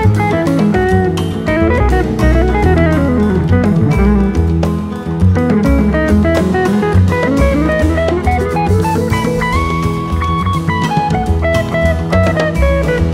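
Background music: guitar-led instrumental with a drum kit keeping a steady beat.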